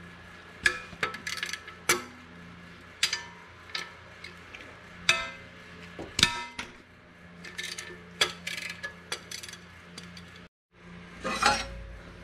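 Hand wrench and ratchet clinking against steel bolts and brackets while undoing the fasteners of an engine's flywheel cover plate: irregular sharp metallic clinks, some ringing briefly.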